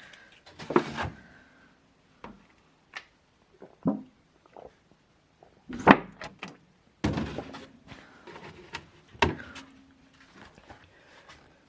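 An irregular series of sharp knocks, thuds and clatters of things being handled and set down, some leaving a brief ringing tone; the loudest come about a second in and near six seconds in.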